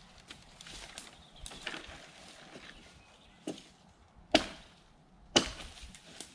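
Tasmanian pattern axe chopping branches off a felled green hardwood: a lighter chop about three and a half seconds in, then two loud chops about a second apart, each with a short ring-out.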